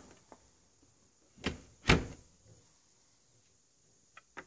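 Miele dishwasher door pushed shut: two knocks about half a second apart, the second one the loudest, as the door closes and latches. A few short clicks follow near the end.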